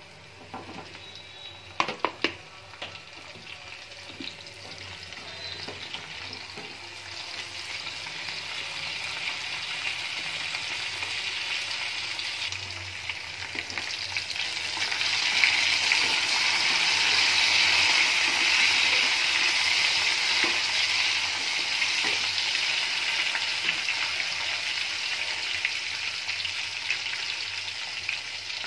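Small whole slit brinjals frying in oil with chopped onions in a steel pan, a steady sizzle that grows louder and is strongest from about halfway through. A few sharp knocks about two seconds in as the brinjals go into the pan.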